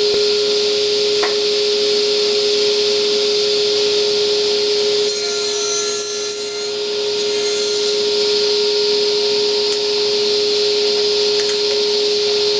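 Table saw running with a steady whine; the sound changes for a couple of seconds around the middle as the blade cuts the face of a tenon in the wood.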